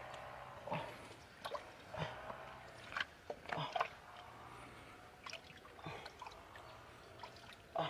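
Muddy water and wet mud squelching and splashing in short, irregular bursts as a hand gropes in a flooded hole for catfish.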